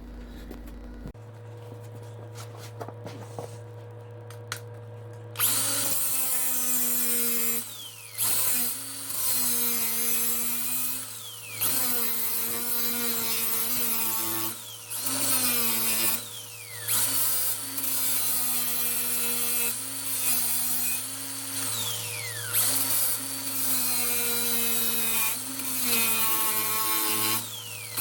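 Handheld electric power tool working on the steel rear subframe. It starts about five seconds in and runs in loaded stretches of a second or two, its pitch sagging under load and picking up again between passes.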